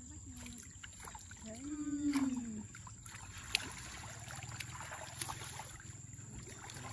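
Muddy pond water sloshing and splashing around people wading waist-deep while they handle a fishing net and pull a carp from it, with scattered small splashes and knocks. About two seconds in, a short vocal exclamation rises and falls in pitch.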